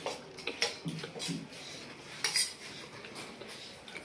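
Cutlery clinking and scraping against a steel plate during eating, several separate clinks.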